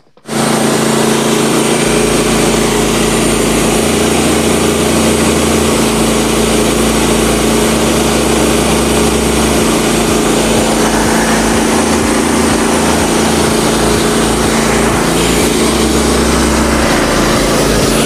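The small gasoline engine of a Frontier OS27 portable band sawmill running steadily.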